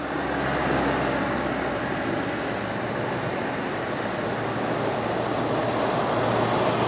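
Steady road and wind noise inside a moving vehicle, with a low engine hum.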